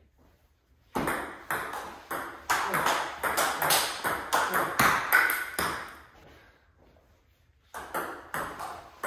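Table tennis ball clicking back and forth in a fast rally, struck by paddles faced with Hurricane 3 Neo rubber and bouncing on the table, a few hits a second. There are two rallies with a pause of about two seconds between them.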